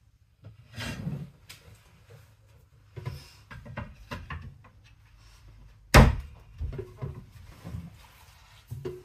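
A square bat being handled, set down onto a potter's wheel head and pressed flat: a run of knocks and scraping, with one sharp, loud knock about six seconds in.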